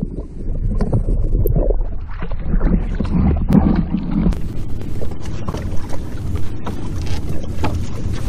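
Lake water sloshing and lapping over a low hull-mounted camera at the waterline, with a steady low rumble, and splashes from a hooked walleye thrashing at the surface that come thick and fast from about halfway through.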